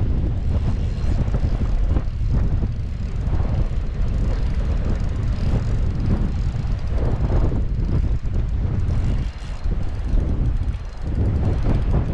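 Wind buffeting the microphone: a loud, continuous low rumble that drops off briefly twice near the end.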